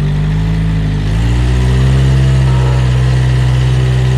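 Rock crawler's engine running under load as it climbs a steep rock face; about a second in it grows a little louder and the revs rise slightly, then hold steady.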